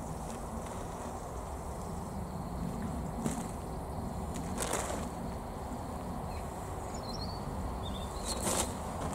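Hands sifting through loose compost on a plastic tarp, with a few brief rustles about three seconds in, near five seconds and near the end, over a steady low rumble and a few faint bird chirps.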